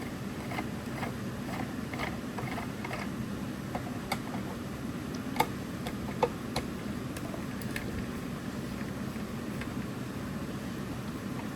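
Light clicks and taps of a plastic computer-speaker cabinet being handled and worked on during disassembly: a run of small clicks over the first few seconds, then a few sharper single clicks around the middle, over a steady low background hum.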